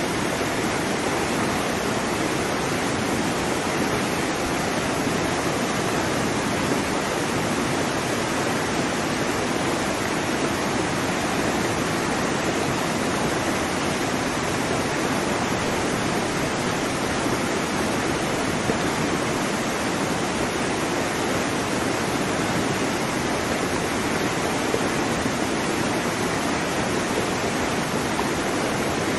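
Steady, even rushing of water, holding one level throughout with no separate wave swells or breaks.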